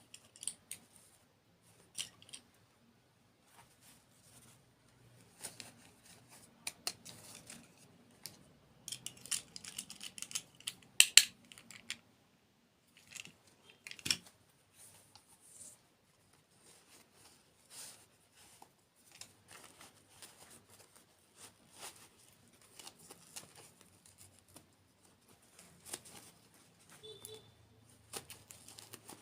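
Scattered crisp crackles and clicks from desserts being bitten and handled, with a loud, busy cluster about a third of the way in.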